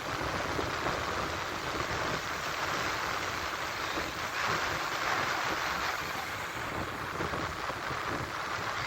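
Strong wind buffeting the microphone over the steady rush of surf, swelling a little midway.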